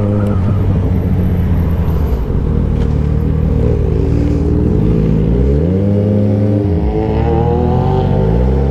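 Yamaha XJ6 inline-four motorcycle engine running at low speed, then rising in pitch as it accelerates about five seconds in. The pitch drops briefly and climbs again near the end.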